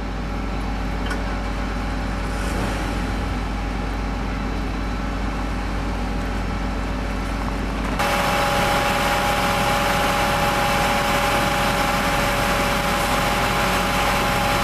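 Fire engine idling steadily. About eight seconds in the sound cuts to a louder, closer engine with a steady hum of two tones.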